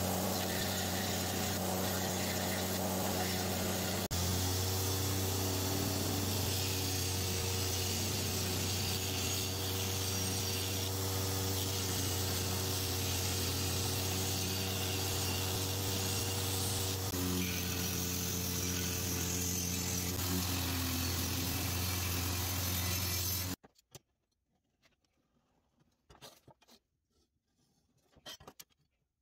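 A belt grinder running steadily, its motor humming under the hiss of the abrasive belt grinding a steel blade. About four-fifths of the way in the sound cuts off suddenly, leaving only faint scratches and taps.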